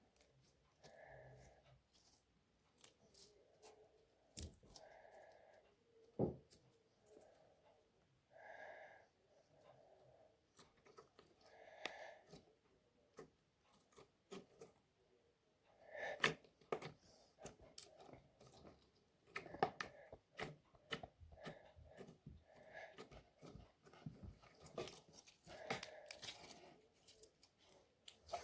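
Faint handling sounds of slime-making by hand: scattered sharp clicks and taps with light scraping and rustling, coming irregularly.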